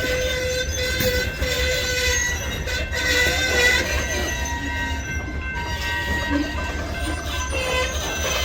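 DeQueen and Eastern freight train rolling slowly on the rails, its steel wheels squealing in several steady, wavering high tones over a constant low rumble.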